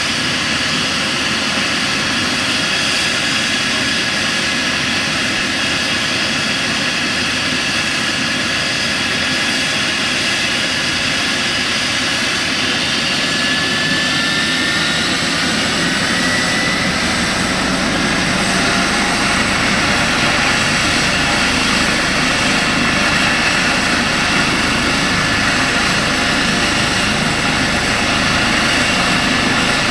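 Eurocopter EC135 helicopter's twin turbine engines running with the rotors turning on the ground: a steady high turbine whine over rotor noise. About halfway through the whine rises in pitch and the sound grows a little louder and heavier as it is readied for take-off.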